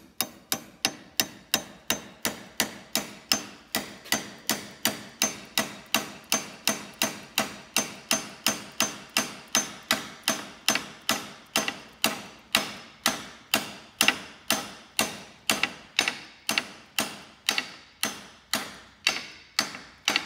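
Hammer lightly tapping a steel key into the keyway of a cast iron Pilot press handle to lock it to its shaft, a steady run of sharp metallic taps about two and a half a second, each with a brief ring.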